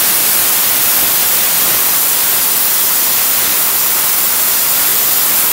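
Tenya Cut 80 plasma cutter cutting metal: a loud, steady hiss of the arc and air jet at the torch. The air comes from the machine's built-in compressor rather than an external one.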